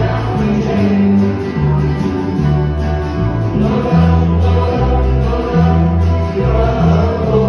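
Live band music: electric and acoustic guitars strumming and picking a song together, with low notes changing every half second or so beneath.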